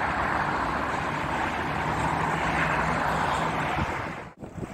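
Steady rushing outdoor noise of wind and distant city traffic, with a faint low hum in the middle. The sound drops out briefly near the end.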